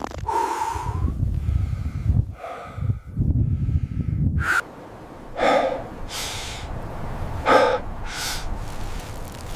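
Heavy breathing: four loud breaths in two in-and-out pairs through the second half, after a low rumble in the first half.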